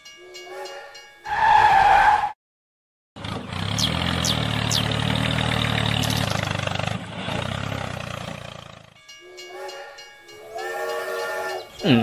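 Toy steam train set sounding its whistle: a chord of several steady tones, then a louder single toot about a second in. After a short gap comes about six seconds of steam hiss over a low hum as the train runs, and the chord whistle sounds again near the end.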